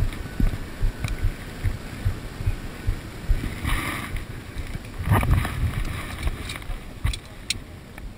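Irregular low thumps and rumble of wind and handling on a body-worn camera microphone, with brief scrapes and rustles about four and five seconds in and a few sharp clicks near the end as the wearer's hands work.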